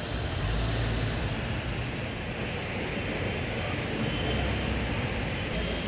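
Steady low rumble with hiss, without distinct knocks, clicks or a pitched machine tone.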